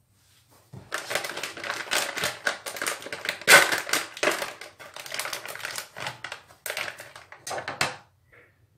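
Foil sachet crinkling in the hands as it is cut open with scissors: a dense, irregular run of crisp crackles.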